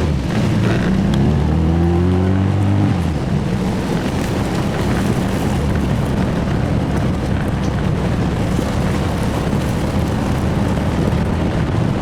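A 1966 Triumph Spitfire's 1147cc four-cylinder engine pulling, its note rising for the first couple of seconds, then steady driving noise with wind and road rush.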